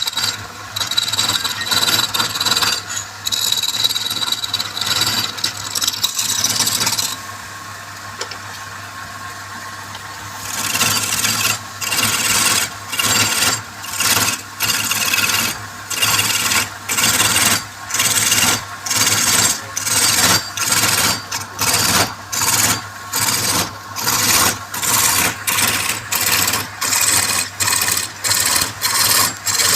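Wood lathe running with a steady hum while a hand tool scrapes the spinning wood, rasping. After a short quieter pause about seven seconds in, the scraping comes back in regular strokes, a little under one a second.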